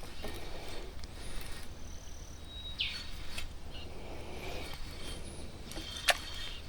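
Outdoor ambience over a low steady hum, with a few short, high bird calls, one dropping in pitch a little under three seconds in. A single sharp click comes about six seconds in.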